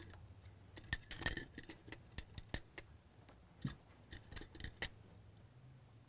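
Makeup tools and containers being handled: a run of sharp, light clicks and clinks, thickest about a second in, then scattered single taps until about five seconds in.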